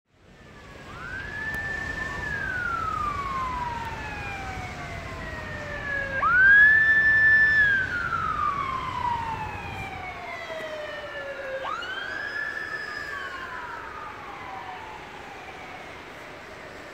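A siren wailing three times: each cycle rises quickly, holds briefly at the top, then falls slowly, with echoes trailing each sweep. A low rumble underneath fades out about two-thirds of the way through.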